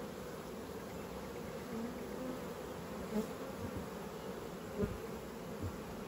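Honeybees humming steadily from an open brood box as a bee-covered frame is lifted out, with a couple of faint knocks from the frame or hive tool.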